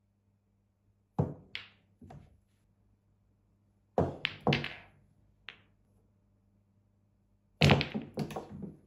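Snooker balls on a small home table: the cue tip strikes the cue ball and balls knock against each other and the cushions. The knocks come in three groups: two or three about a second in, a quick run around four to five seconds in, and a loudest run near the end.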